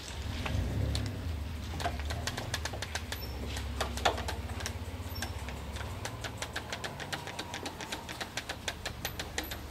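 One-handed ratcheting bar clamp being squeezed repeatedly, its trigger clicking several times a second as it is tightened onto a freshly steamed wooden plank, with a couple of louder knocks and a low hum underneath.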